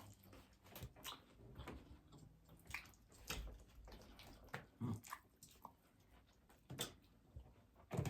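Faint eating sounds: irregular soft clicks and smacks of chewing, with a couple of heavier knocks.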